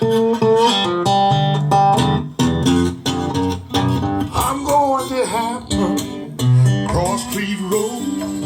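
Acoustic blues guitar played alone: a run of picked notes and strums, with a few wavering, bent notes about halfway through.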